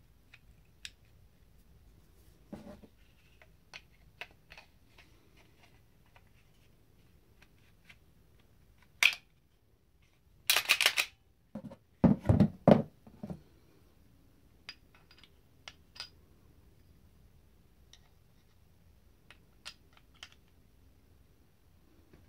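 Handgun parts being handled: light clicks of a .22LR conversion slide and its recoil spring assembly, with a few louder knocks and rattles around the middle.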